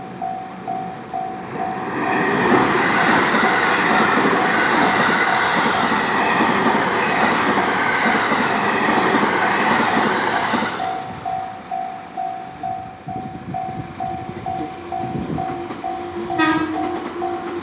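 Japanese railway level-crossing alarm ringing in a steady repeating electronic ding, about two and a half strikes a second. From about two seconds in to about eleven seconds in, a train passes over the crossing and its rumble drowns the bell. After the train, the bell keeps ringing, a low steady hum joins, and a brief high tone sounds near the end.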